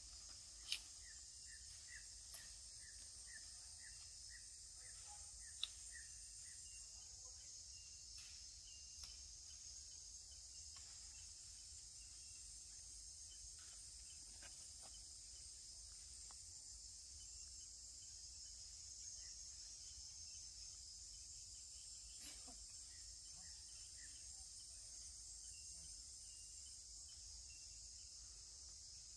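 Faint, steady high-pitched insect chorus of chirring crickets. In the first few seconds there is a quick run of short high chirps, and a couple of sharp clicks stand out, the loudest about a second in and near six seconds.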